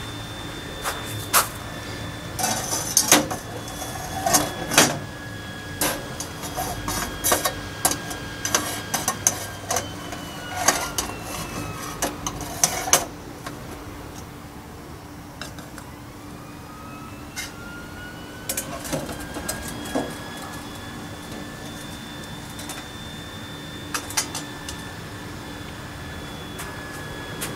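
Metal clinks and clatter as a slotted stainless windscreen pot stand and a stainless pot are fitted over a brass alcohol stove, busy through the first half and sparser later. Under it runs a steady hum with faint, slowly gliding whines.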